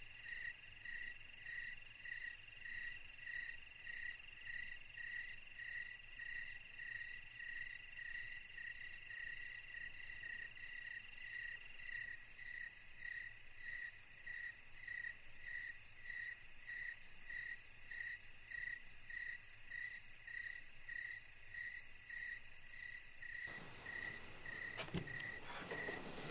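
A cricket chirping steadily, about two chirps a second, over a fainter continuous insect trill. Near the end a blanket rustles as the sleeper moves.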